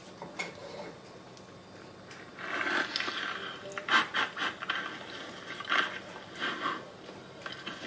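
Playback of a helmet-mic test recording through a phone's small speaker: scraping, rubbing and breathy noises of a motorcycle helmet being pulled on and its mic handled. The noises come in a burst about two and a half seconds in, then in short scratchy strokes until near the end.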